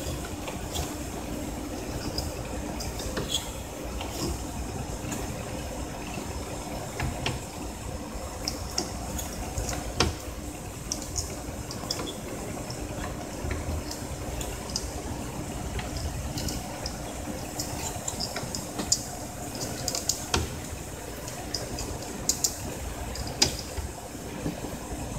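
Light plastic clicks and taps, scattered and irregular, as a cartridge is handled in the print-head carriage of a Canon iP2770 inkjet printer. A steady low hum and faint hiss run underneath.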